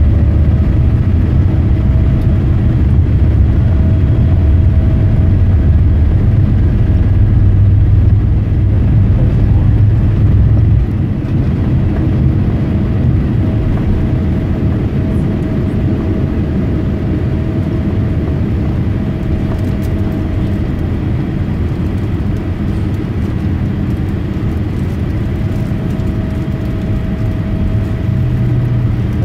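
Boeing 787-8's GEnx turbofans at takeoff thrust, heard inside the cabin over the wing, with a heavy low rumble from the takeoff roll. About eleven seconds in the rumble drops away as the wheels leave the runway, and the steady engine sound carries on into the climb.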